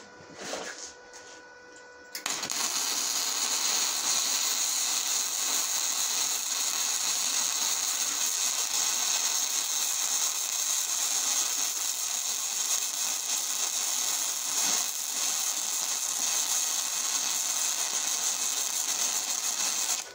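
MIG welding aluminum with a spool gun: the arc runs a bead with a steady hiss, starting about two seconds in and cutting off abruptly just before the end.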